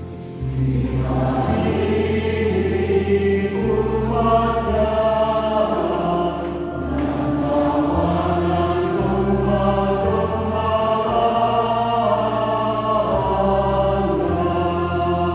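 Group singing of a church hymn or psalm over sustained low accompaniment notes that change every second or two.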